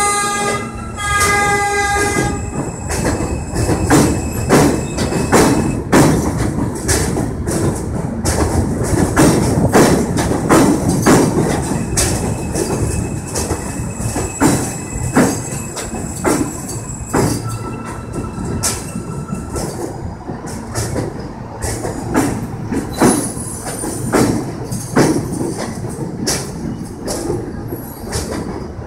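R160B subway train pulling out and rolling past, with a steady rumble and its wheels clacking over rail joints and switches in a quickening run of clicks, and now and then a thin squeal. About a second in, a short pitched tone sounds.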